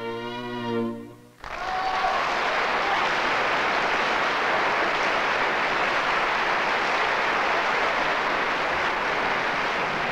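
A string quartet's final chord, held with vibrato, ends about a second and a half in. Steady audience applause follows.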